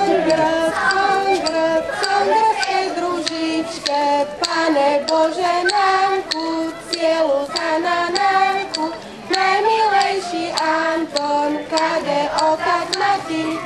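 Children's folk ensemble singing a folk song together, holding steady notes in a simple melody, with light knocks in time with the song.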